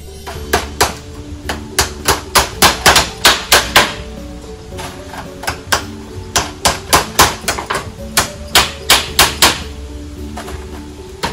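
Hammers striking split bamboo slats: quick runs of sharp blows with short pauses between them.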